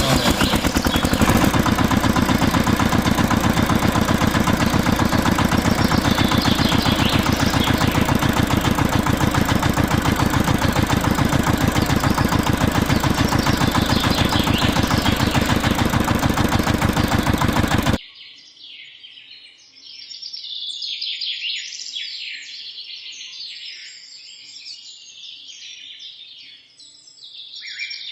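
A motor running loudly and steadily with a fast rattle, cut off abruptly about eighteen seconds in. After that, birds chirping.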